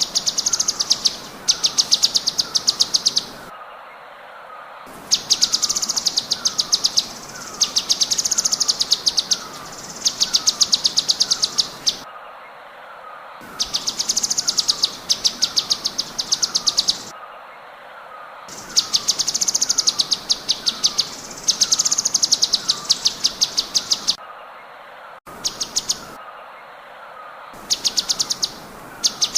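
Cucak cungkok singing bursts of very rapid, sharp, high repeated notes, each burst lasting a second or two with short pauses between, over a softer falling chirp repeated about twice a second.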